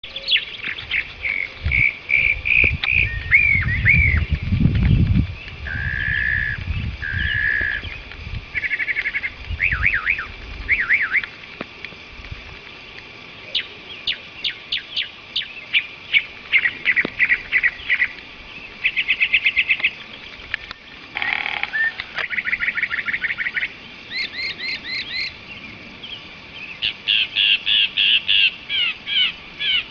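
A songbird singing a long, varied song: one phrase of chirps, whistles or trills repeated several times, then a switch to a different phrase. A low rumble is under the song a few seconds in.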